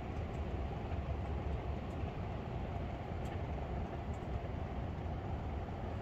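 Portable propane radiant heater running, its ceramic burner giving a steady, low rush of burning gas.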